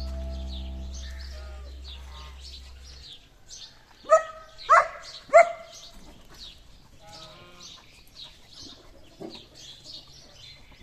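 Background music fading out, then small birds chirping, with three loud short animal calls in quick succession about four seconds in.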